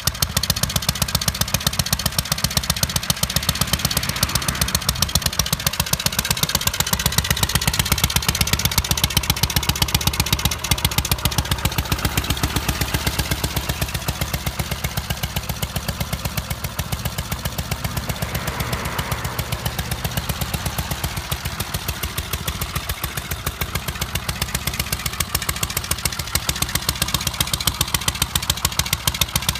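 1981 Triumph Bonneville T140's 750 cc air-cooled parallel-twin engine running steadily at idle through high-level slash-cut exhaust pipes, its airbox removed for an open pod-type air filter. The exhaust beat is even and regular.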